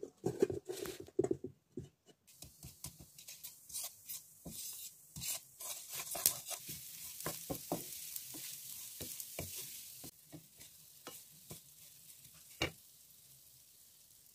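A plate clatters against a steel bowl as it is lifted off. Then a wooden spatula scrapes and stirs grated coconut in a pan over a light sizzling hiss that fades about ten seconds in, with one sharp knock near the end.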